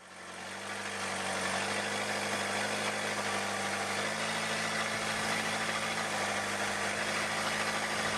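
A boat's engine running steadily under a broad rushing noise, fading in over the first second, its pitch shifting slightly about four seconds in.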